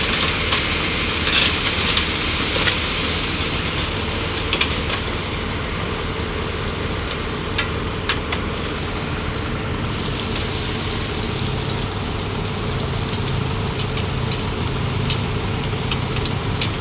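Genset engine running steadily at an even speed, with a few light clicks over it.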